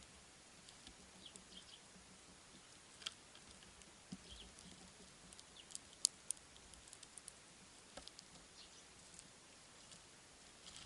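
Small birds feeding at a seed feeder: faint scattered sharp taps and clicks of pecking at seeds, with a few short high chirps. Two louder clicks come about six seconds in.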